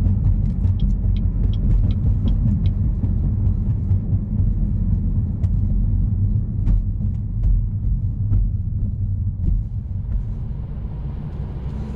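Exhaust of a 2016 Chevrolet Malibu 2.0T's turbocharged four-cylinder, fitted with a Borla axle-back and a resonator delete, giving a steady low drone while the car drives at city speed.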